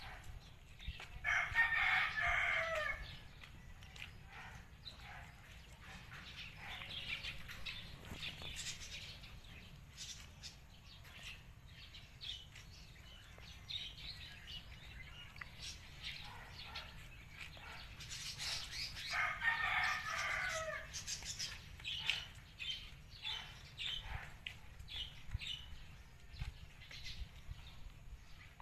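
A rooster crowing twice, each crow about two seconds long, the first near the start and the second about two-thirds of the way through, with faint bird chirps between.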